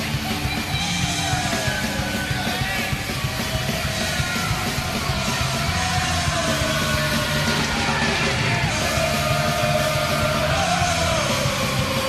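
Hockey goal song: a loud rock track with shouted, yelled vocals over a steady full band.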